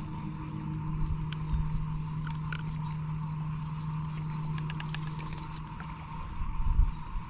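Steady low hum of a fishing boat's motor, with scattered light clicks and knocks of tackle being handled on the boat, and a heavier knock near the end.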